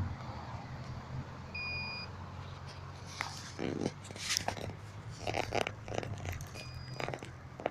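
Quiet outdoor background with a steady low hum, two short high electronic beeps about five seconds apart, and scattered small clicks and rustles.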